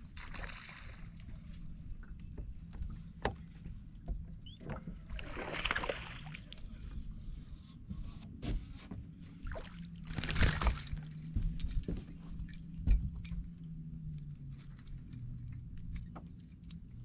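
A hooked largemouth bass splashing at the surface as it is reeled to the boat and brought aboard, with a short splash about five seconds in and the loudest splash about ten seconds in. Scattered clicks and rattles of the tackle sound over a steady low hum.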